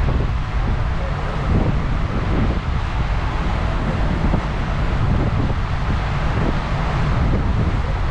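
Wind buffeting the microphone on the open deck of a moving ferry: a loud, steady, gusting rumble with a hiss of rushing air and water over it.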